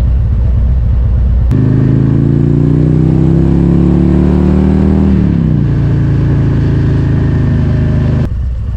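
Harley-Davidson motorcycle's V-twin engine heard from the rider's seat. It runs low and steady at first, then pulls away with its pitch rising for about three seconds, drops sharply at an upshift a little past the middle, and holds steady in the higher gear.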